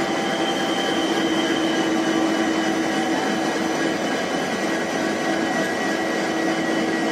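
Steady hum of a halted passenger train's locomotive running at a standstill, a constant tone over even machinery noise.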